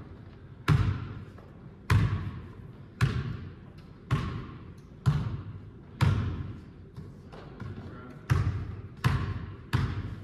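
A basketball bouncing on a hardwood gym floor about once a second, each bounce echoing through the hall; the last few bounces come quicker.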